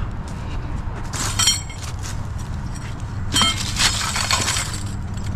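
Metal poles clanking together as they are picked up and handled, with ringing clangs about a second in and again about three and a half seconds in, over a steady low hum.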